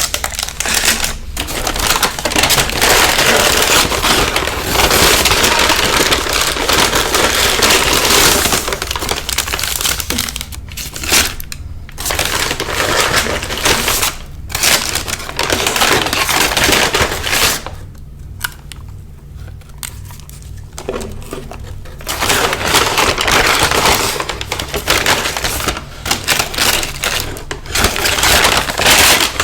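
Close-miked crunching and crinkling of fast food and its paper packaging, in loud irregular stretches with short pauses and a quieter spell about two-thirds of the way through.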